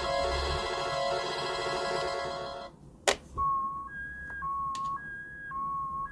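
Synthesized electronic tones playing a busy bright loop that stops about two and a half seconds in; after a sharp click, a plain two-note electronic beep pattern alternates between a lower and a higher tone, with small clicks between the notes, like a ringtone being built up.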